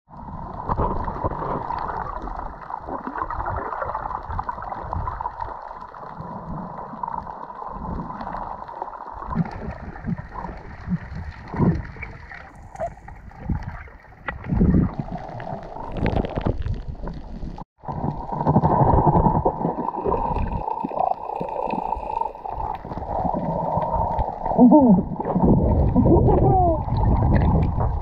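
Muffled underwater sound through a waterproof camera housing: water rushing and gurgling in uneven surges as the swimmer moves, with a few short squeaky glides near the end.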